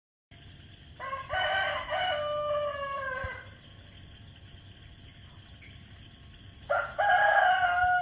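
Rooster crowing twice: a long cock-a-doodle-doo about a second in, and another starting near the end. A steady high-pitched hiss runs behind both.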